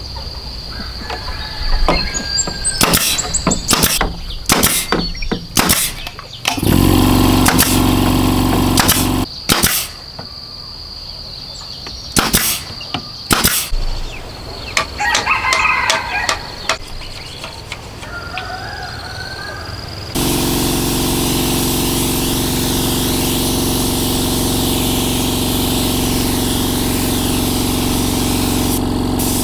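An air-powered nail gun fires a run of sharp shots into bamboo poles, and a small air compressor's motor runs for a few seconds. Chickens call faintly. About two-thirds of the way through, the compressor starts running steadily under the loud hiss of a compressed-air spray gun.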